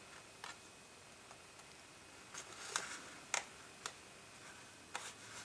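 Cardstock gift card holder being handled and pressed after folding: a handful of faint, crisp paper clicks and taps, most of them between about two and four seconds in.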